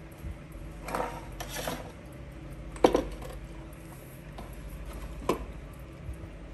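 Handling noise as wooden mantel clocks are moved about on a table: a rustle and shuffle about a second in, then a sharp knock near three seconds and a lighter knock a little after five seconds.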